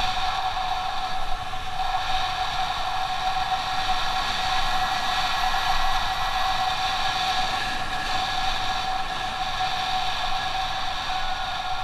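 Yamaha Byson motorcycle's single-cylinder engine running steadily while riding, heard from the bike with wind rumble on the microphone; the pitch dips slightly near the end.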